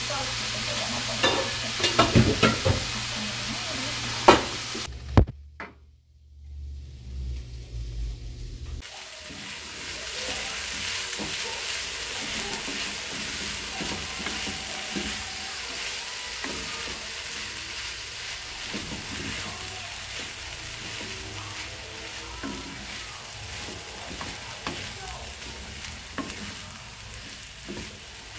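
Ground beef frying and sizzling in a pan, with a spoon knocking and scraping against the pan several times in the first five seconds. After a brief lull the sizzle goes on steadily.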